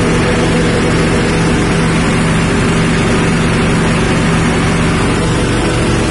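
6.5 hp petrol engine running steadily, belt-driving a rice-husk grinder: a loud, even engine drone over a continuous rushing noise from the mill as it grinds husks into bran.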